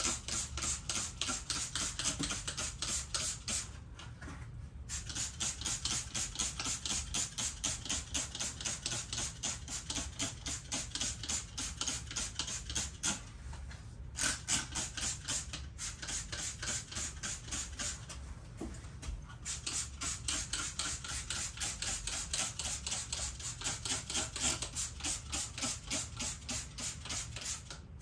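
Hand trigger spray bottle pumped rapidly, a quick hissing spritz about four times a second, stopping briefly three times.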